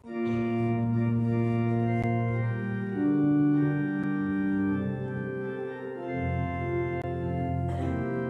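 Church organ starting up abruptly and playing sustained chords that change every second or two, with deeper bass notes coming in about six seconds in. This is the opening of the closing hymn at the end of Mass.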